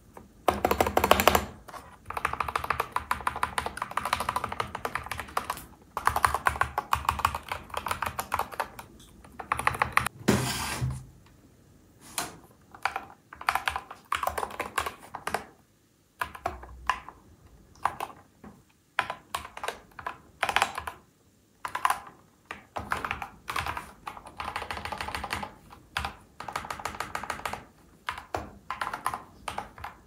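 Typing on a Lofree mechanical keyboard: runs of quick key clacks broken by short pauses, loudest about a second in.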